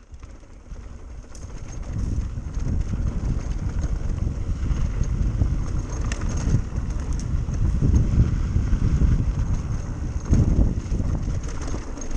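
Wind buffeting the microphone and tyres rumbling over a dirt trail as a mountain bike picks up speed downhill. It grows louder over the first two seconds, with a few sharper knocks from the rough ground.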